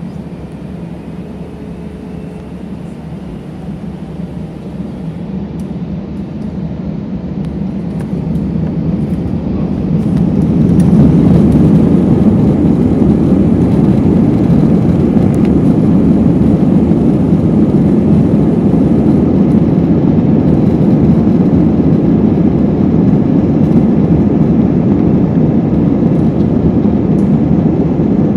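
Jet engine roar heard inside an Airbus A320 cabin at takeoff: the noise builds for about ten seconds as the engines spool up to takeoff thrust, then holds steady and loud through the takeoff roll.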